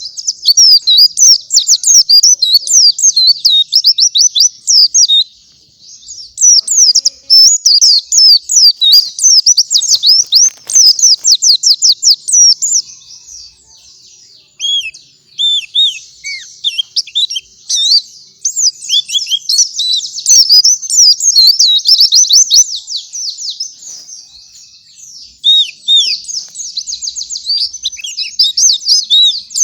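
White-eye (pleci) singing a long, fast twittering song of high chirps and trills, broken by a few short pauses.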